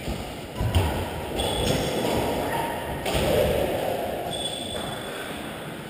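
Sounds of a doubles badminton rally in a sports hall: thuds and taps of footwork and racket strokes on the shuttlecock, echoing in the hall. A sharp hit comes just under a second in, and there are a couple of short high squeaks.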